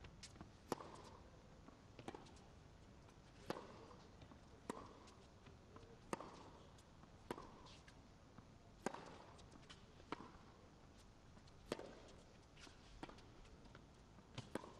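A tennis ball being struck back and forth by rackets in a long baseline rally: a sharp racket strike roughly every 1.3 seconds, about ten in all, with fainter clicks of the ball bouncing between them.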